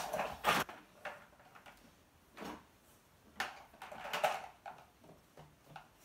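Scattered knocks and clatters of plastic toy trucks being handled and pushed on a wooden floor, the sharpest knock about half a second in.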